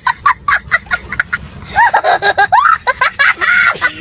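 High-pitched comic laughter sound effect: a quick run of short squeaky giggles, then longer swooping, sliding hoots from a little under two seconds in.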